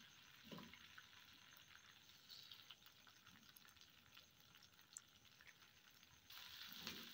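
Faint sizzling of tomato paste frying in oil in a nonstick frying pan, with a few soft scrapes of a silicone spatula stirring it. The sizzle grows a little louder about six seconds in.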